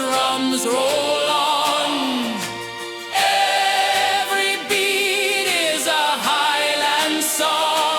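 Instrumental dub reggae music with a bagpipe-style melody. Wavering, bending lead lines play over a steady held drone note, with little bass underneath.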